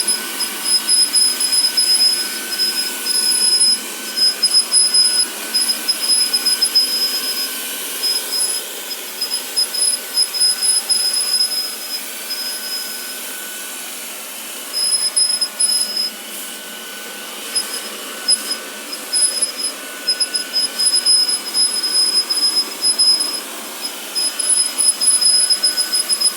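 Vacuum cleaner running with a high-pitched squeak that chatters in rapid pulses over the motor's noise. The squeak drops out for a couple of seconds about halfway through, then comes back.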